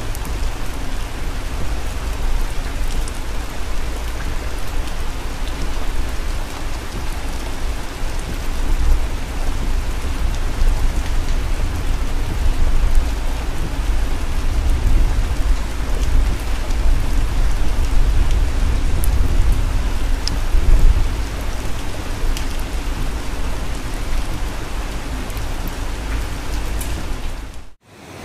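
Rain hitting a moving car's windshield and roof, heard from inside the cabin over a steady low road rumble. The sound cuts off abruptly near the end.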